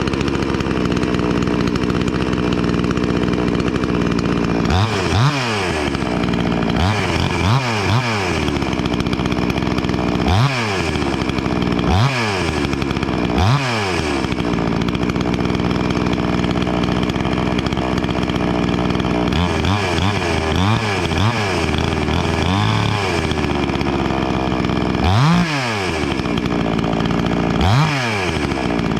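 Wemars WS-6220G 62cc two-stroke chainsaw, a Zenoah clone, running steadily at a low speed, with the throttle blipped about a dozen times, each a short rev up and back down.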